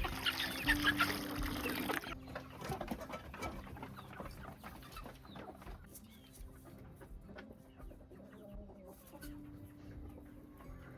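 Chickens clucking, with short calls and small clicks, over soft background music with long held notes. The sound is louder for the first two seconds, then drops abruptly to a quieter, sparser clucking.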